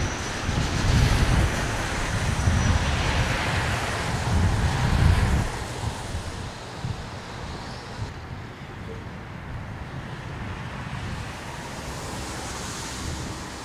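Wind buffeting the microphone over traffic noise from a wet road. The gusty rumble and traffic die down about five seconds in, leaving a steady, quieter outdoor hiss.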